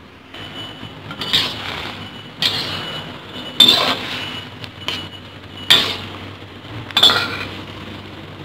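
Metal spatula scraping and clanking against a wok while vegetables are stirred in hot liquid: about five strokes a second or so apart, each with a brief metallic ring.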